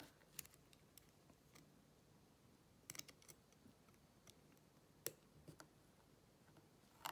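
Faint, scattered clicks and ticks of small hand tools working at a stubborn C-clip on a padlock, irregular, with the sharpest click about five seconds in.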